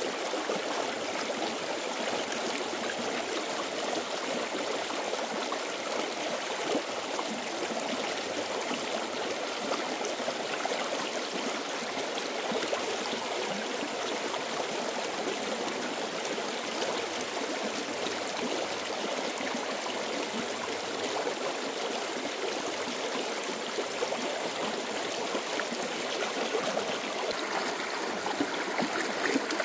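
Stream water flowing steadily, growing a little brighter and louder near the end.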